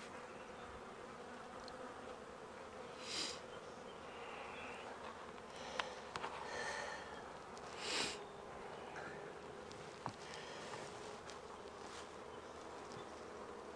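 Honey bees humming steadily over an open hive, with two brief louder buzzes about three and eight seconds in. A few light clicks come from frames being handled.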